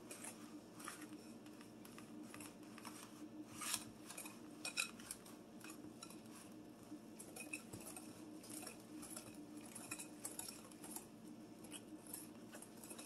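Spoon stirring thick muffin batter in a glass mixing bowl: soft scraping with light clinks against the glass, and two louder knocks about four and five seconds in.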